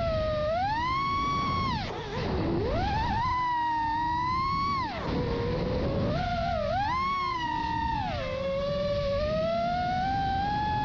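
Radio-controlled aircraft's motor and propeller whining, its pitch rising and falling as the throttle changes, with dips about two and five seconds in and then climbing steadily near the end. A rough low rumble runs underneath.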